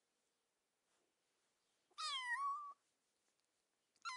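Kitten meowing: one high-pitched meow about two seconds in that dips slightly in pitch and then rises at the end, and another meow starting near the end.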